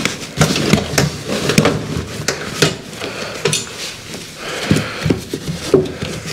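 Camera backpacks being pushed and settled into a bicycle trailer's box: fabric rustling with many irregular small knocks and clicks against the trailer.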